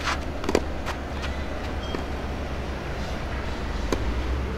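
Tennis ball being hit and bouncing during a rally: a few sharp knocks in the first second, and one more just before the end, over a steady low rumble.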